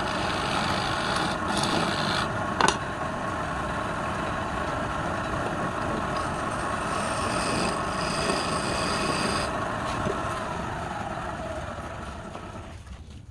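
Wood lathe motor running steadily, with a sharp click early on and a brighter high whine for a few seconds in the middle; near the end the motor's pitch slides down and the sound fades as the lathe is switched off and spins down.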